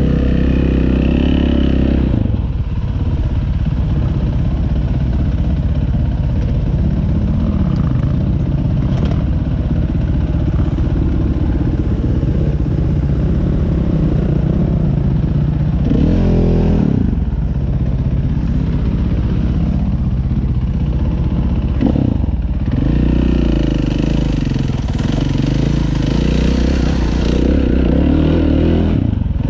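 Dirt bike engine running close under the rider, its pitch rising and falling over and over as the throttle is worked on a rough trail.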